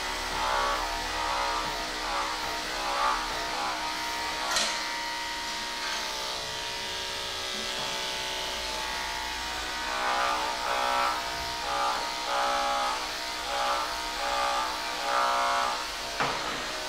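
Electric dog grooming clippers buzzing steadily as they are run through a dog's coat, with a sharp click about four and a half seconds in.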